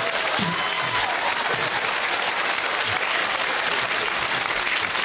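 Audience applauding steadily, with a few faint voices calling out in the crowd.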